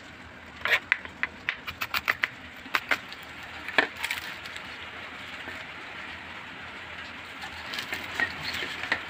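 Kitchen knife chopping shallots on a cutting board: a quick run of sharp knocks, about three or four a second, for the first four seconds. After that come soft crackles as a dried chilli is crumbled by hand over a steel plate.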